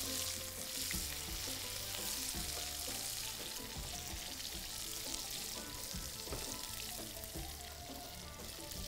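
Sliced onions sizzling in hot oil in a shallow aluminium pan, with a wooden spatula scraping and knocking against the pan as they are stirred.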